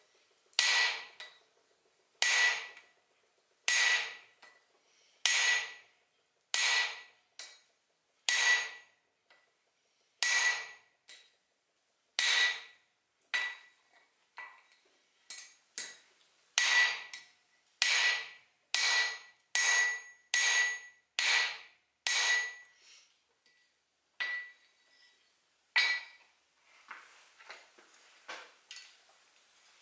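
Hand hammer striking a flatter held on hot mild steel on the anvil, each blow ringing: about twenty blows, one every second and a half or so, coming faster midway, then stopping near the end with a few faint clinks. The flatter is smoothing out the ridges in the centre of a forged split cross.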